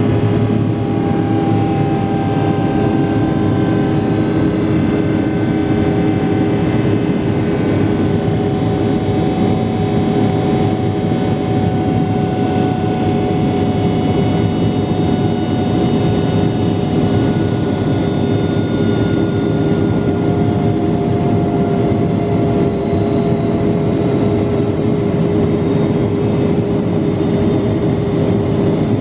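Twin-jet airliner engines at climb thrust, heard from the cabin: a steady roar with a constant hum and a few faint whining tones that slowly sink in pitch.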